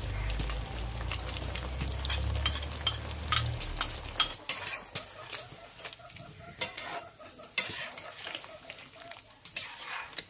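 Chicken and spice paste being stirred in a frying pan: a utensil repeatedly knocks and scrapes against the pan over a steady sizzle. A low rumble runs under the first four seconds.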